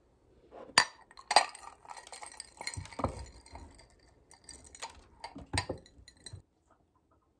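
Ceramic bowl clinking against a glass mug as granola and diced apple are tipped and scraped out of it into the mug, with loose granola rattling in between. The sharpest clinks come twice about a second in and again about five and a half seconds in; the sound stops shortly after.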